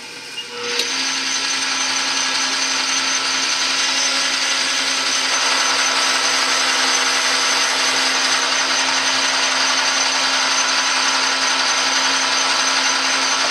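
Metal lathe running with the knurled brass bar spinning, while a cutting tool grooves it to mark off a second piece: a steady machine whir with a cutting hiss that builds up within the first second and then holds level.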